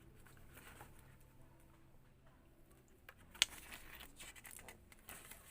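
Faint handling of the small parts of a wireless lavalier mic set: light clicks and rustles, with one sharper click about three and a half seconds in, over a faint low hum in the first three seconds.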